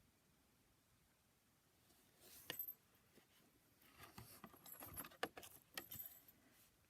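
Faint handling sounds of a picture book: a rustle and click about two and a half seconds in, then a run of small clicks and paper rustling as pages and flaps are turned.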